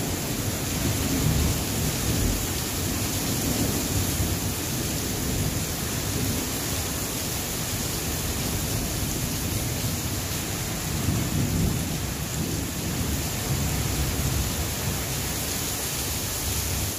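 Heavy rain falling steadily, a constant hiss, with low rolling thunder rumbling underneath that swells briefly about eleven seconds in.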